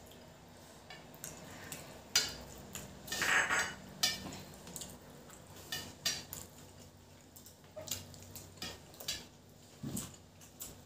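Hands scooping and mixing rice and curry on stainless steel plates: scattered light clicks and scrapes of fingers and food on the metal, loudest about two to three and a half seconds in.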